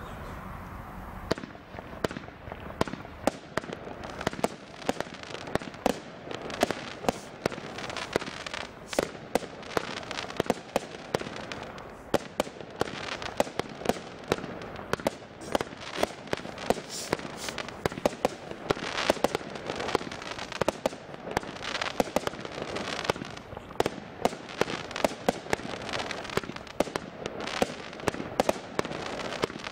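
A Reign of Fire 70-shot big-bore firework barrage (cake) starts firing about a second in, then goes shot after shot, roughly one to two a second. Each shot is a sharp launch bang and a willow-break burst, with a steady hiss between them.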